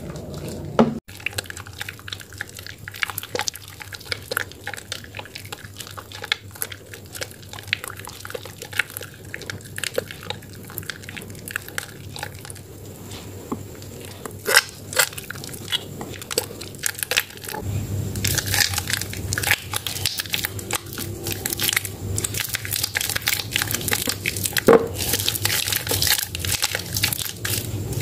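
Water-soaked Medicare White bar soap and its lather squeezed and crushed by hand in a plastic basin. It makes wet squishing with many small crackles and clicks, which grow denser and louder about two-thirds of the way in.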